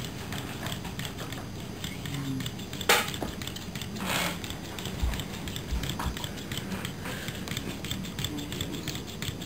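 Small battery-powered walker robot with wire legs, its tiny gear motor and legs ticking rapidly and steadily on a tabletop. A sharp click about three seconds in.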